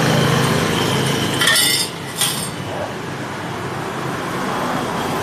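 Slow-speed dry-cut metal saw with a carbide-tipped blade running with a steady hum, then two sharp metallic clinks about a second and a half and two seconds in, after which the saw's hum gives way to a quieter steady noise.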